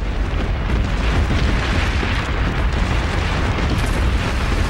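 Earthquake sound effect: a loud, continuous deep rumble with crashing noise as a stone tower collapses.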